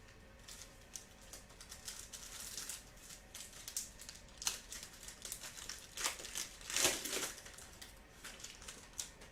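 Foil wrappers of trading card packs being torn open and crinkled by hand, an irregular crackle with the loudest bursts about six to seven seconds in.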